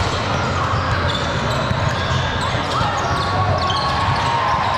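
Basketball game in a gym: the ball dribbled on the court, short high squeaks of sneakers, and a steady murmur of crowd voices.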